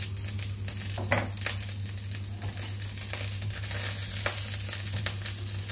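Minced garlic sizzling in vegetable oil in a nonstick wok, stirred with a silicone spatula, with scattered light scrapes and crackles over the steady hiss of the frying.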